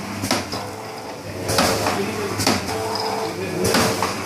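Automatic sachet packing machine for chili sauce running: a sharp clack about once a second, one for each packing cycle, four in all, over a steady motor hum.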